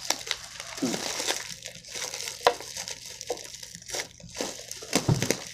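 Packaging crinkling and crackling as it is handled and squeezed, with many short sharp crackles.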